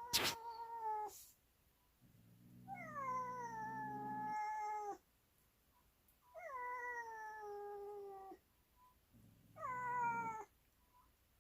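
Domestic cat yowling in long drawn-out calls, each sliding down in pitch, with a low growl under most of them. There are four calls: the first is already underway and ends about a second in, and the others come at roughly two to three second intervals. There is a sharp click right at the start.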